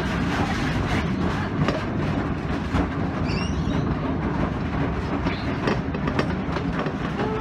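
Scenic Railway's old wooden roller coaster train running along its track: a steady rumble and rattle with many quick clicks of wheels over track joints.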